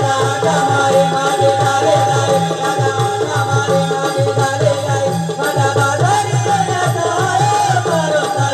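Live Naman gavlan folk music: a drum beating a steady, repeating rhythm under a wavering melody line with a long held note above it.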